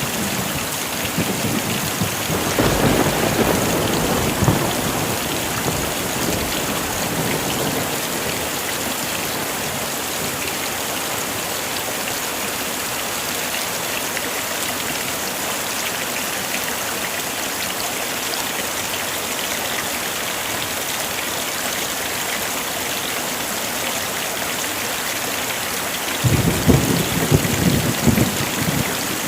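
Heavy rain falling steadily, with thunder rumbling low about three seconds in and again near the end.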